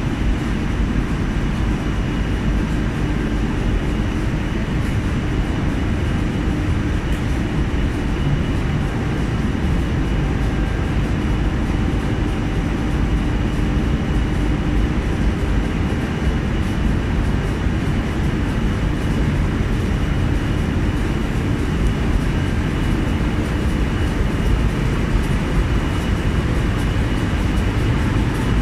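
Multi-unit rotogravure printing press running, its web of plastic film feeding over the rollers: a loud, steady machine noise with a few faint steady whines running through it.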